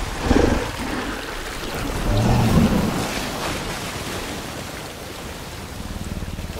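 Film sound design of Kong, a giant ape, giving low growls, loudest about two seconds in, over a steady wash of rain and water ambience.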